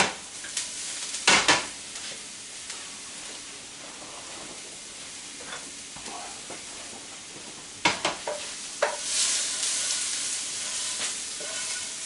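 Chopped garlic and onions sizzling in a hot pan, with a utensil knocking and scraping against the pan a few times, near the start, about a second and a half in and around eight seconds. The sizzle grows louder from about nine seconds on.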